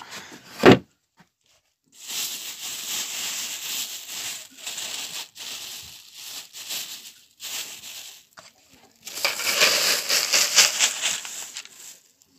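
A thin plastic bag being rustled and crumpled by hand in crackly spells, after a single sharp knock just under a second in.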